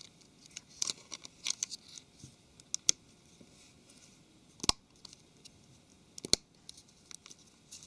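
Plastic loudspeaker-and-antenna module of a Samsung Galaxy S4 being handled and pressed into the phone's rear housing. Faint scratching and small clicks, with two sharp clicks about four and a half and six seconds in as it is pushed down into place.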